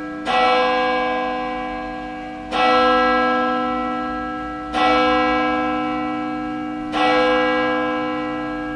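A bell struck four times, about every two seconds, each stroke ringing on and slowly fading.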